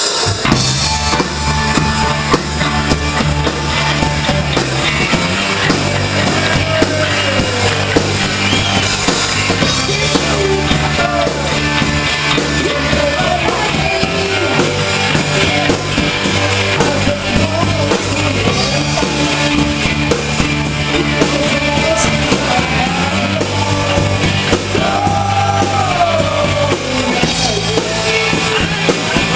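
Live rock band playing: drum kit, long held bass notes that shift every few seconds, and a singing voice.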